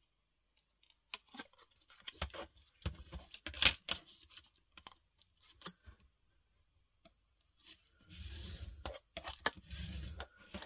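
Kraft cardstock being handled, with scattered small clicks and taps as a plastic ruler is laid on it. From about eight seconds comes a couple of seconds of scraping as a bone folder is drawn along the ruler to score a fold in the card.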